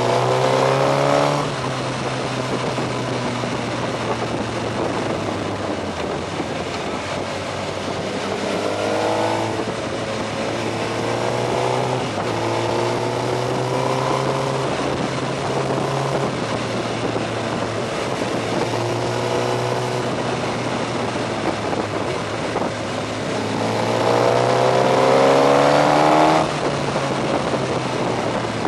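Onboard sound of a Suzuki GSX-R 1000's inline-four engine under a steady rush of wind, the revs rising in several pulls as it accelerates, the longest and loudest near the end.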